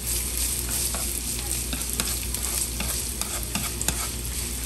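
Slivered ginger sizzling in hot olive oil in a nonstick frying pan, a steady hiss, while wooden chopsticks stir it with scattered light clicks against the pan.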